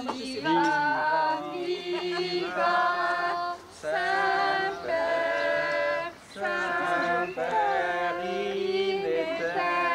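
A group of voices singing together in chorus, in phrases of long held notes with two short breaks.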